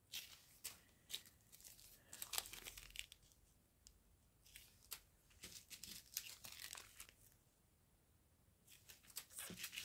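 Faint crinkling of small plastic zip-lock bags of diamond-painting drills being handled, in scattered short crackles.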